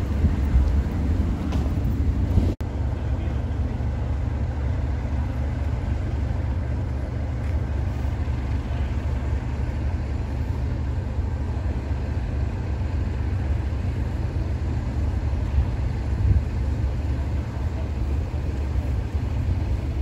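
Class 37 diesel locomotive's English Electric V12 engine idling: a steady low rumble, with people talking on the platform. The sound cuts out for an instant about two and a half seconds in.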